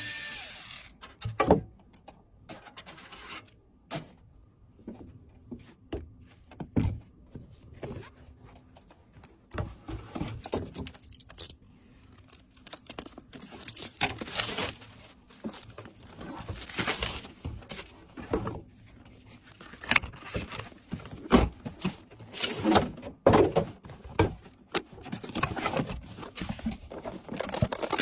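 Computer parts being handled and fitted during a PC build: irregular clicks, light knocks and short scrapes.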